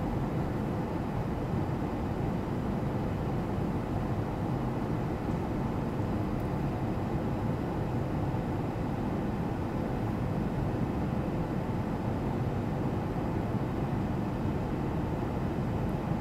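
Steady, even drone of an airliner in flight heard from inside the cabin: a low rush of engine and air noise with a faint steady hum and no changes.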